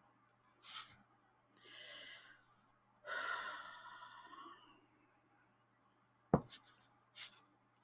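A person gasping and sighing softly, a few breathy exhales, the longest about three seconds in; a little after six seconds a sharp tap is the loudest sound, followed by a couple of small clicks.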